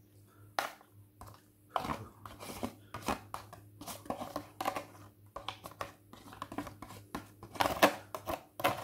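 Irregular crinkling and clicking of a plastic takeaway food container being handled while vegetable curry is served out of it.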